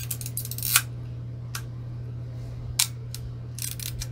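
Sharp mechanical clicks from a Braun-made Wittnauer 35 mm rangefinder camera being worked by hand, film advance and shutter release. Two clicks, about two seconds apart, are louder than the rest.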